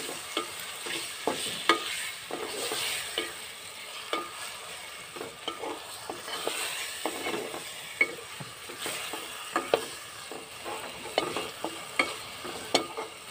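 Chopped tomatoes and spices sizzling in hot oil in an aluminium pot while a wooden spatula stirs them, scraping and knocking irregularly against the pot's side and bottom.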